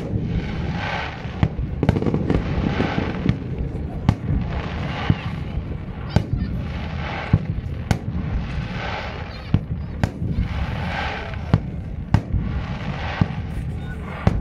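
Fireworks display over a river: shells bursting in a steady run of sharp bangs, one or two a second, over a continuous low rumble, with a hiss that swells and fades about every two seconds.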